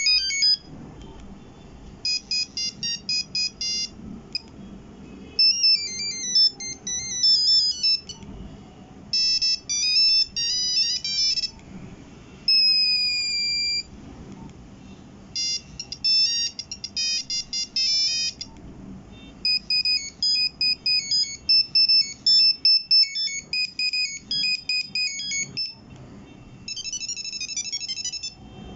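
Nokia 1100 monophonic ringtones played one after another: short melodies of quick, single beeping notes, each lasting a few seconds with brief pauses in between. About halfway through, one tone is a single note that slides downward.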